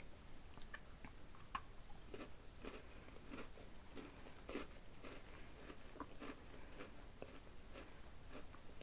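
Close-up chewing of a crunchy Pumpkin Spice Fudge Stripes cookie: soft, irregular crunches and mouth clicks, a few each second.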